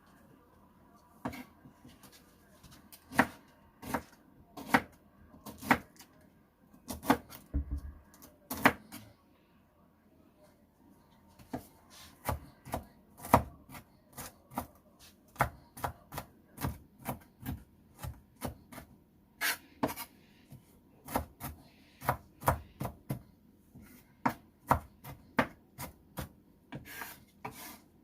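A knife chopping on a cutting board: sharp, separate strokes at about one or two a second, pausing for a couple of seconds about nine seconds in before the chopping resumes.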